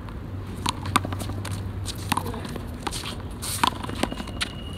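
One-wall handball rally: a series of sharp smacks as the small rubber ball strikes the concrete wall and the players' gloved hands, mixed with running footsteps and sneaker scuffs on the concrete court.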